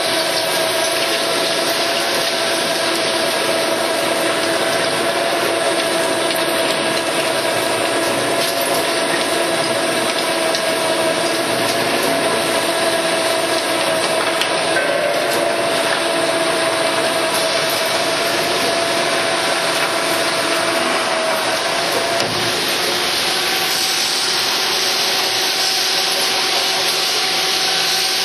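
CNC plate drilling machine running a twist drill through steel plate at a 3.5 mm per second feed, with coolant spraying on the bit. It makes a steady mechanical noise with a steady whine that stops about 22 seconds in, leaving a brighter hiss.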